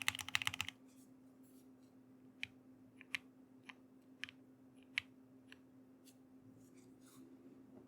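Hex4.B custom mechanical keyboard with Durock Lavender switches, fast typing that stops under a second in. Then a handful of faint single clicks, over a low steady hum.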